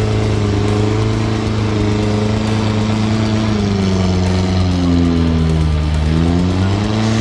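Engine of a small Suzuki Samurai-type off-road 4x4, held at high revs under load as it climbs a mud slope. Its pitch sags about halfway through and rises again, and the sound cuts off abruptly at the end.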